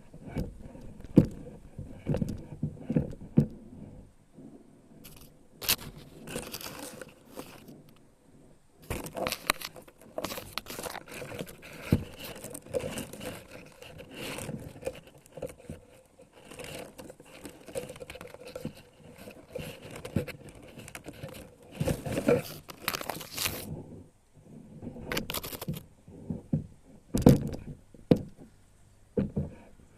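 Foliage rustling, crinkling and scraping in irregular bursts as leaves and twigs are handled and pushed aside, with a few sharp louder knocks.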